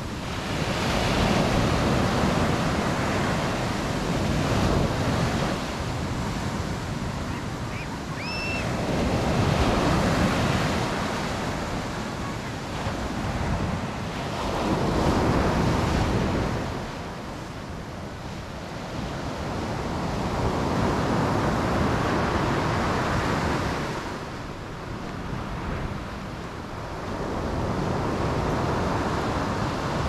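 Surf on a sandy beach: waves breaking and washing up the sand, the rush swelling and easing off every five seconds or so.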